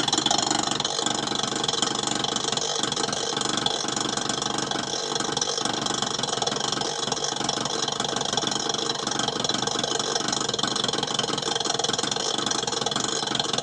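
Refrigerator compressor running with a steady hum and rapid knocking. It is the sign of a failing compressor: the fridge is not cooling and the compressor needs replacing.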